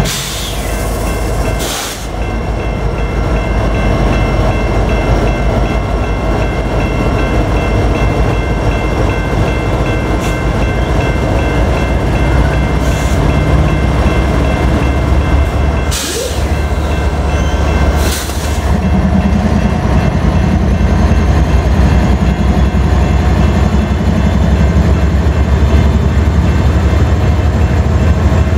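BNSF diesel-electric freight locomotives passing slowly at close range, their engines running with a steady low rumble as they pull a train of coal hoppers. A few sharp knocks come from the train as it rolls by, and the engine rumble grows fuller as another locomotive draws level, about two-thirds of the way through.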